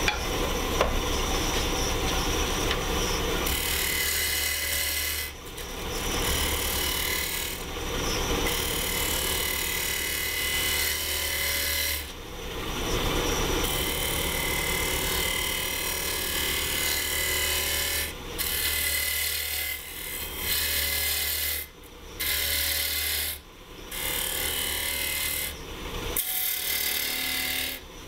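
Wood lathe spinning a maple burl box blank while a hand-held turning tool cuts into it, a steady scraping cut that breaks off for short moments several times as the tool is eased off the wood.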